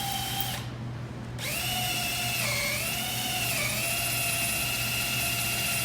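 Power drill turning a two-step drill bit into a broken TPMS sensor valve stem. Its steady whine stops briefly about half a second in, starts again a second later, then dips in pitch for about a second before steadying.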